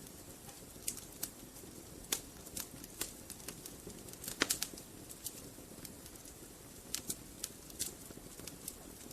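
Wood fire burning in a fireplace: irregular sharp crackles and pops over a low steady hiss of the flames, with a louder cluster of pops a little before halfway.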